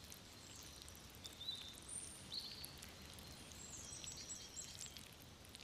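Faint natural ambience: scattered short, high chirps and whistles over a low steady background hiss.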